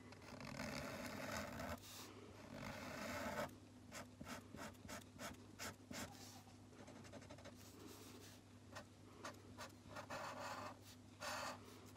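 Felt-tip highlighter pen scratching faintly on paper: two longer strokes at first, then a run of short, quick back-and-forth strokes as a pattern is filled in.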